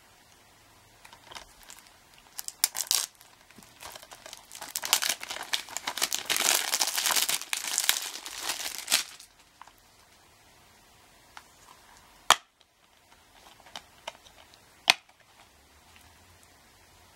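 Cellophane shrink wrap being slit and peeled off a plastic Blu-ray case, crinkling and tearing for about eight seconds. Then two sharp plastic clicks, a few seconds apart, as the case is snapped open and the disc is pulled off its hub.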